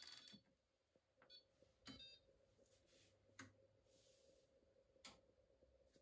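Faint clicks and short electronic bleeps from a Beko hybrid tumble dryer's control panel as its program dial is turned, about five in all, spaced a second or so apart.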